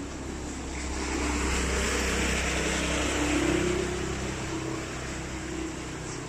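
A motor vehicle passes close by: its engine hum and a wide hiss swell to a peak about three seconds in, then fade away.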